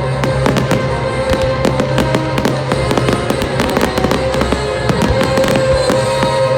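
Fireworks display: a dense, continuous crackle of rapid pops and bangs, with music playing underneath.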